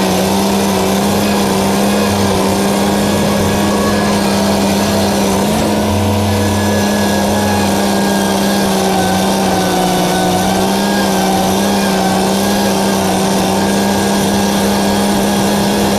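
An engine running steadily at a constant speed, with an even droning hum.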